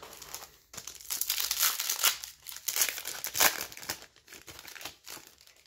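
Foil wrapper of a 2022 Topps Pro Debut baseball card pack crinkling as it is worked open by hand. The dense crackle starts about a second in, is loudest just past the middle, and thins to scattered crackles near the end.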